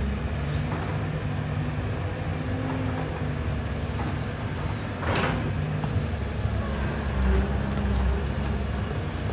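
Diesel engine of a CAT hydraulic excavator running steadily at a low, even hum, with one sharp knock about five seconds in.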